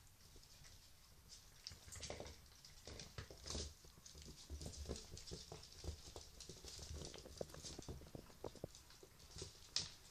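Two puppies play-wrestling on a fleece blanket: faint scuffling and rustling of paws and bodies, with many small clicks and a few louder rustles.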